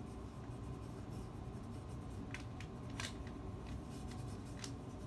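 Hands rubbing and pressing a vinyl stencil down onto a pine board, with a few sharp little clicks and crackles over a steady low hum.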